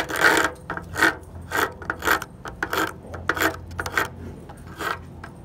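Edge of a plastic CD/DVD drawn again and again through a hand-held tungsten carbide sharpener: short rough rasping strokes, about two or three a second. The carbide is shaving curls of plastic off the disc's edge.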